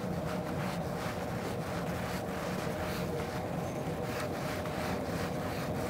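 A boat's engine running with a steady low hum, with wind hissing on the microphone.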